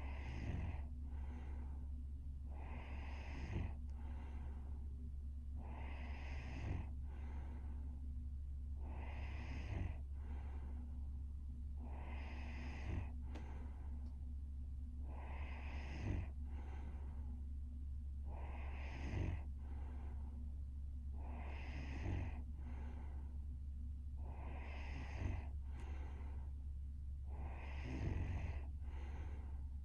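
A young woman breathing heavily in her sleep with light snoring, about one breath every three seconds, each breath carrying a short snorting catch. A steady low hum runs underneath.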